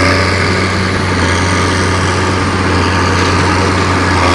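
Engine running steadily at idle, with a strong low hum under a noisy rattle; no change in speed.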